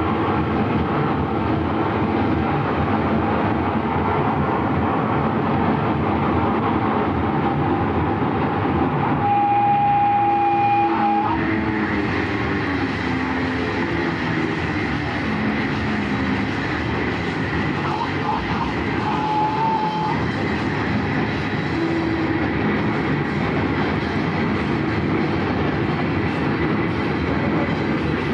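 Steady rumbling noise of a moving vehicle, with a steady high tone lasting about two seconds about a third of the way in and a shorter one about two-thirds of the way in.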